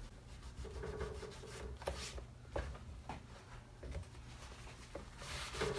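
Paper towel rubbing and wiping across a vinyl door panel, faint, with a few light ticks from hands and the wad touching the panel.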